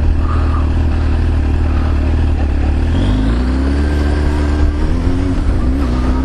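Motor vehicle engine running under a steady low rumble, its note climbing in stages from about halfway through as it accelerates.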